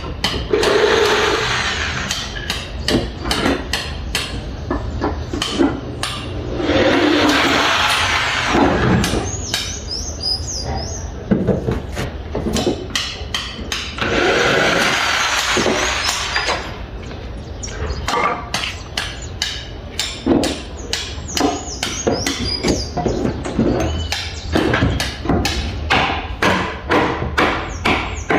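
Hammer blows driving nails, in irregular runs of strikes that settle into a steady rhythm of about two to three blows a second near the end. Three times a harsh rushing noise of a couple of seconds covers the hammering.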